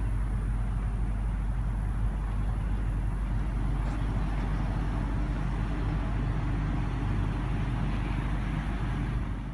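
Range Rover Supercharged's 5.0-litre supercharged V8 idling steadily, a low even hum, fading out at the very end.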